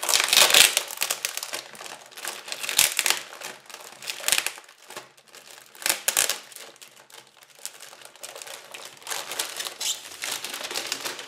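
Shiny foil plastic bag crinkling and crackling as it is torn open and handled, in irregular bursts, loudest right at the start and again about six seconds in.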